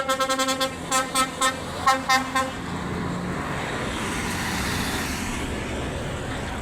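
Vehicle horn honking: a quick run of short toots, then two groups of three honks, stopping about two and a half seconds in. After that, a steady outdoor rumble of background noise.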